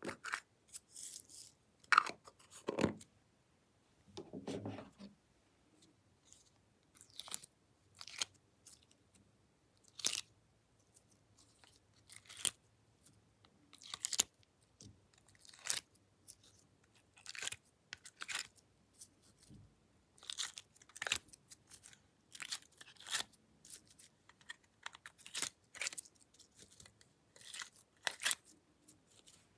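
Hands working in glossy slime strewn with sequins and glitter, and handling plastic makeup cases: irregular short crackles and clicks, roughly one a second, with a denser rustle of handling around the fourth and fifth seconds.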